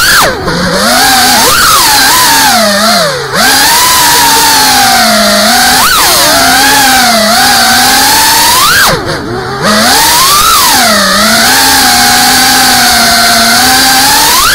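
FPV racing quadcopter's brushless motors and propellers whining up close, heard from the drone's own camera. The pitch rises and falls constantly with the throttle, with brief dips where the throttle is cut, about half a second in, around three seconds and around nine seconds.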